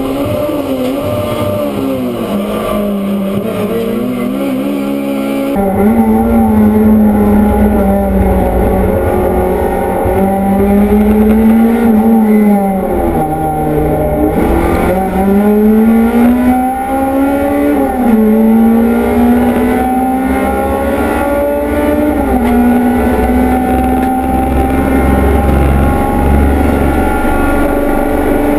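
Touring car engine heard from inside the race car's cockpit at racing speed, its note climbing and falling with throttle and gear changes. About five and a half seconds in it switches abruptly to a different car's engine, a little louder.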